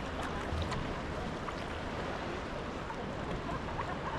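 Water lapping and gurgling against a sea kayak's hull, over a steady rush of wind and sea, with a few faint short high sounds over it.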